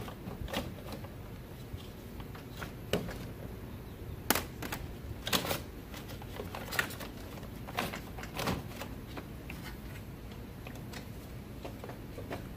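Nissan Versa Note's plastic radiator cooling-fan assembly knocking and scraping as it is worked down into place against the radiator: a scatter of irregular short knocks and clicks, the loudest in the middle stretch.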